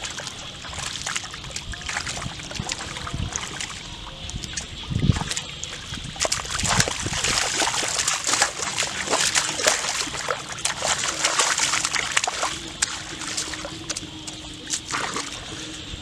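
Irregular splashing and sloshing of hands and feet churning shallow muddy water, busiest in the middle, with a dull low thump about five seconds in.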